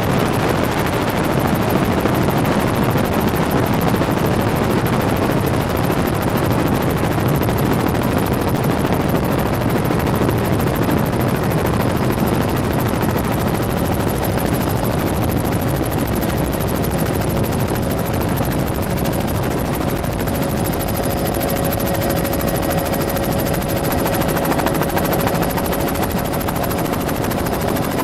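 Helicopter running steadily in flight, heard from inside the cabin: a loud, even rotor and engine noise, with a faint steady hum that comes in about halfway through.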